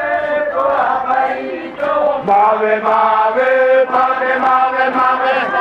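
A group of voices chanting a traditional Bajawa song together in long held notes, with a brief drop about two seconds in before the chant swells again.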